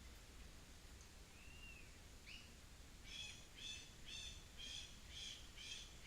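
Wild birds calling faintly: a single arched whistle and a short rising note, then from about halfway in one bird repeats a rapid, buzzy call about twice a second, over a low background hum.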